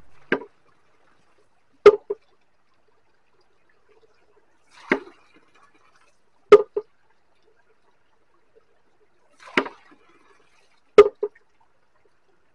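Water-driven bamboo seesaw knocker rocking as it fills and empties, sounding about every four and a half seconds. Each cycle gives a crisp wooden knock with a quick second tap just after it, then a duller knock mixed with a splash of water about three seconds later.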